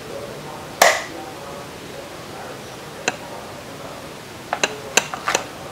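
Steel beaters and dough hooks being pushed into the plastic sockets of a Hanabishi HHMB-120SS hand mixer. There is one sharp, briefly ringing click about a second in, another click near three seconds, and a quick run of small clicks and taps near the end.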